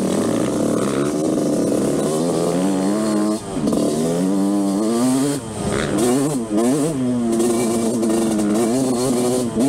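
Yamaha YZ125 two-stroke engine revving as the dirt bike is ridden. The note climbs and falls repeatedly as the throttle is worked and gears change, with several brief drops around the middle, then holds steadier near the end.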